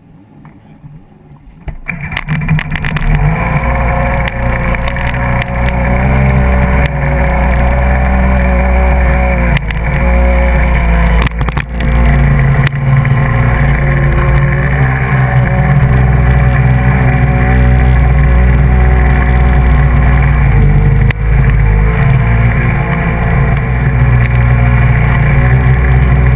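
Kawasaki SX-R 800 stand-up jet ski's two-stroke twin engine running hard over the rush of water. It comes in loud about two seconds in, and its pitch dips briefly a few times as the throttle eases.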